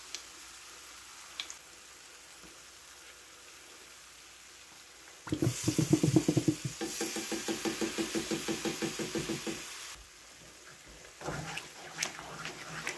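A nearly empty plastic ketchup squeeze bottle sputtering in quick repeated squirts for about five seconds as the last of the ketchup is forced out with air, starting about five seconds in. A faint sizzle from the skillet comes before it, and a wooden spoon knocks and scrapes in a cast iron skillet near the end.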